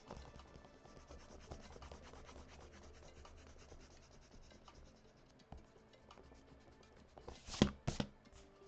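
Eraser rubbing back and forth on sketchbook paper in quick, fine strokes to lift leftover pencil lines, with two louder brushing strokes near the end.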